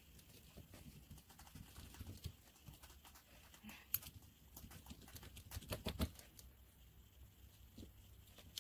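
Faint, scattered small clicks and taps of tweezers picking seeds out of strawberries and of hands on a paper-towel-covered table, with a sharper tap about four seconds in and a short run of louder taps around six seconds.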